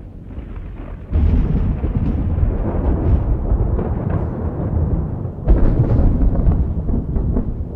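Thunder: a sudden crack about a second in, breaking into a long, deep rolling rumble, with a second crack about five and a half seconds in.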